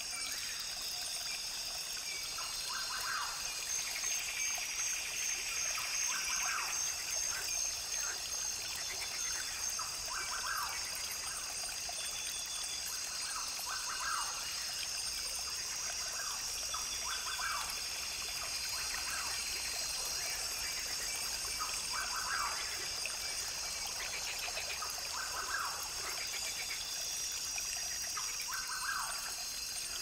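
Rainforest brook trickling and gurgling steadily, with a constant high-pitched drone and short calls repeating every couple of seconds.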